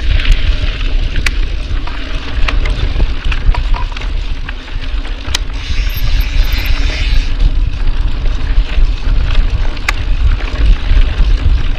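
Scott Spark 900 mountain bike ridden fast along a dirt trail: heavy wind rumble on the camera's microphone, tyres hissing over the dirt, and sharp clicks and rattles from the bike over bumps. The hiss swells twice, near the start and about halfway through.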